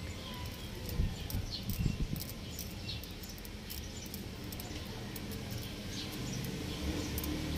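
Small birds chirping in short, repeated high calls, with two dull knocks about one and two seconds in from work on the engine's heater plugs.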